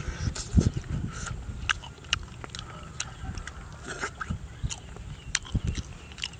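Close-up eating sounds of a person biting, tearing and chewing a cooked piglet by hand, with wet mouth smacks and finger sucking: irregular sharp clicks and smacks throughout.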